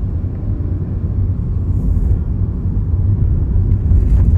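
Car engine and road noise heard from inside the cabin: a steady low rumble that grows louder towards the end as the car accelerates away from the roundabout.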